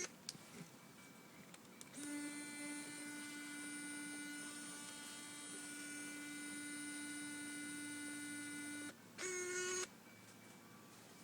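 Fujifilm Instax mini 25 instant camera's lens motor whining steadily for about seven seconds, then a short, louder whine near the end: the weird sound of a stuck lens at power-on.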